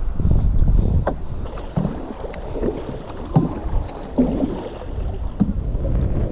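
Wind rumbling on the microphone and water splashing and sloshing, with a few short knocks.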